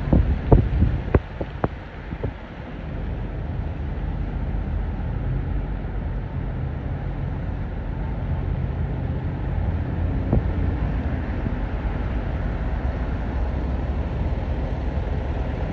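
Steady low rumble of a car's engine and tyres on wet pavement, heard from inside the cabin while driving. A few sharp clicks or knocks sound in the first couple of seconds, and one more about ten seconds in.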